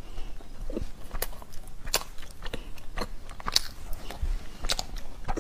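Close-up mouth sounds of a person eating soft, warm chocolate-filled bread: a steady run of wet smacking and chewing clicks, irregular and one after another.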